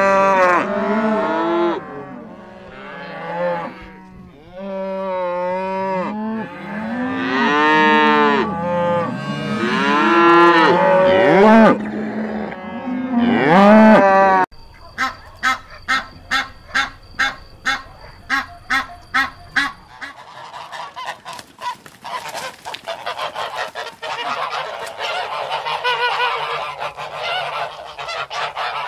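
A calf mooing in a series of long calls that rise and fall in pitch. About halfway through, this gives way to a flock of ducks calling: first an even run of short quacks about two a second, then a dense, noisy clamour of many birds at once.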